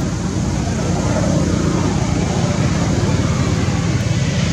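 Steady, loud low rumble of outdoor background noise, with no distinct events standing out.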